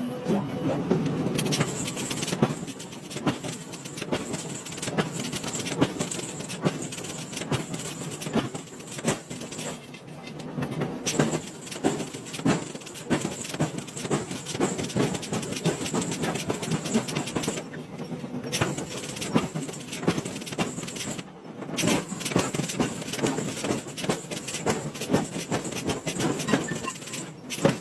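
Metal being forged: rapid, irregular hammer blows on metal, clanking and clinking, broken by a few brief gaps.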